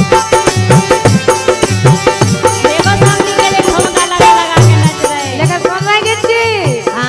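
Instrumental passage of a Bundeli wedding gari folk song: a steady hand-drum beat with rattling percussion. From about the middle, a melody line swoops up and down in pitch over the beat.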